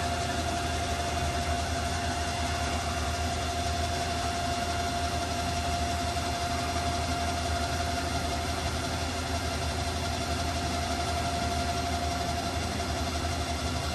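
CNC horizontal boring mill running: a steady low machine hum with a steady whine over it that cuts off near the end.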